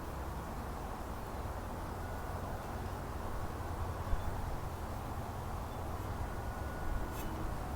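Steady low background rumble, with a faint click about four seconds in and another sharp tick near the end.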